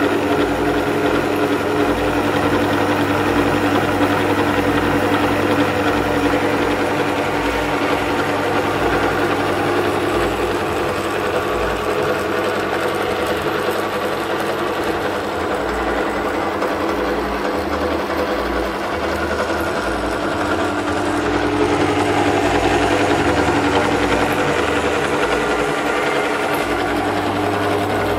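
Einhell BT-BD 801 E bench drill press running with no load: a steady electric-motor hum with the belt drive and spindle turning.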